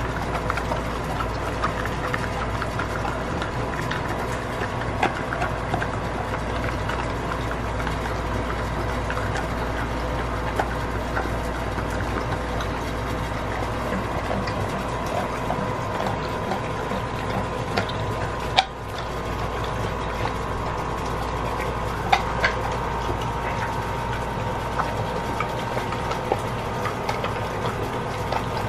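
Pitbull-mix dog wet-chewing and mouthing raw pork, with scattered sharp clicks of teeth, and one louder click about two-thirds of the way through, over a steady background hum.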